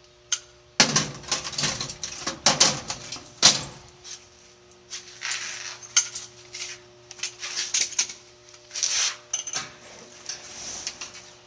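A run of irregular sharp metallic clicks, clinks and short rattles, like hard metal parts being handled, over a faint steady hum.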